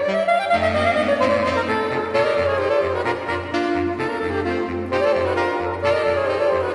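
Saxophone quartet of soprano, alto, tenor and baritone saxophones playing. A melody in the upper voices moves over a low bass line of short repeated notes.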